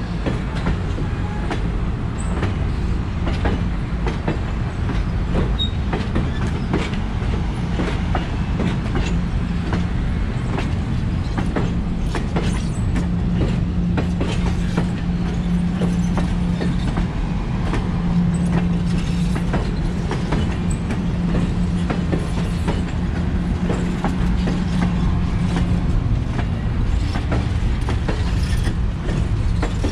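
Streamlined stainless-steel passenger coaches rolling slowly past, their wheels clicking over rail joints over a steady low hum.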